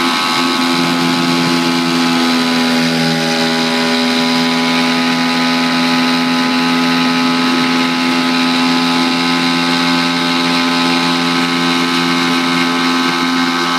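Mercury outboard motor running at a steady speed with the boat under way, its engine note holding even throughout.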